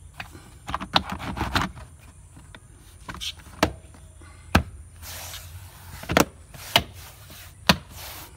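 Plastic tailgate sill trim panel of a Perodua Aruz being pressed back onto its clips by hand: about half a dozen sharp snaps and taps, with rubbing and handling of the plastic between them.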